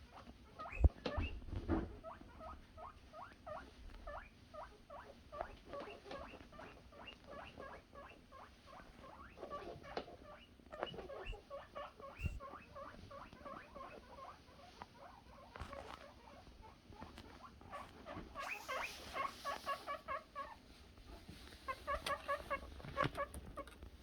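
Guinea pig boars wheeking for food: long runs of short, high squeaks, several a second, coming louder in two bursts near the end. There is a sharp knock about a second in.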